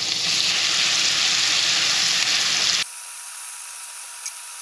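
Shrimp sizzling in butter and garlic in a frying pan, a steady hiss. A little under three seconds in, it drops abruptly to a quieter, thinner sizzle with a faint steady tone.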